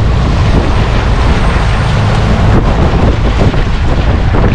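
Yamaha outboard motor driving a boat at speed, a steady loud run mixed with wind buffeting the microphone and water rushing from the wake.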